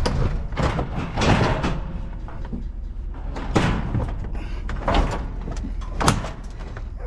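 Pickup truck tailgate being lifted and pushed shut by hand, with a series of five metal clunks and scrapes.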